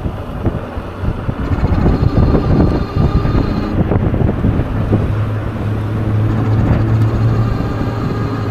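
Wind buffeting the microphone while riding an electric bike on the road. A steady low hum starts about five seconds in.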